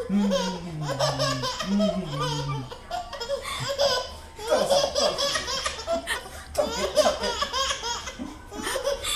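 A young child laughing hard in repeated high-pitched bursts, an adult man's deep voice heard in the first couple of seconds.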